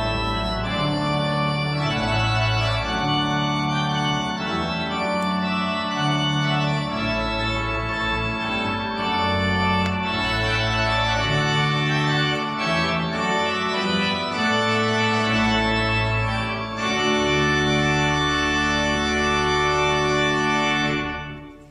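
Church organ playing slow, sustained chords over a changing bass line.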